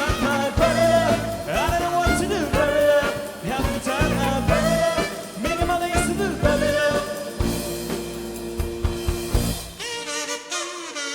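Live band playing an upbeat, ska-flavoured medley with drum kit, bass and a gliding lead melody over it. Near the end the bass and drums drop out, leaving the higher parts.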